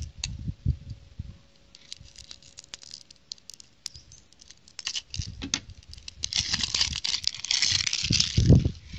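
Small scissors snipping the plastic band on a toy capsule with light clicks, then the plastic crinkling and tearing as it is pulled loose, a dense rustle from about six seconds in, with a few low bumps of handling near the end.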